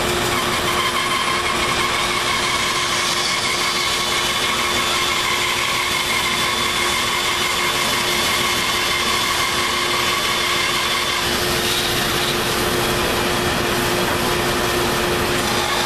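Bandsaw running with a steady hum and whine while a wooden apron board is fed into the blade to cut tenon shoulders.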